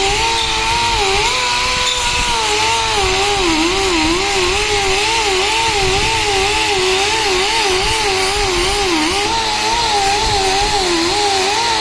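Power tool polishing a brake drum: a motor whine whose pitch wavers up and down continually as the load changes, over a steady abrasive hiss.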